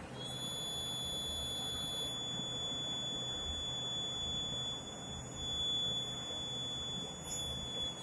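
Buzzer of a homemade transistor smoke-detector circuit sounding one steady high-pitched tone, set off by smoke reaching its MQ6 gas sensor. It comes on right at the start.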